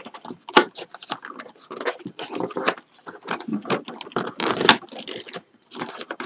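Dry rolled paper tubes crackling and rustling as they are bent and worked through a woven paper-tube basket, with two sharp clicks, about half a second in and near the end. The tubes crackle because they have dried out rather than being kept damp.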